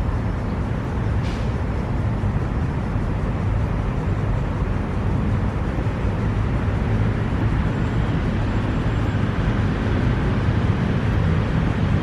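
Steady low rumble of distant road traffic, with one faint short click about a second in.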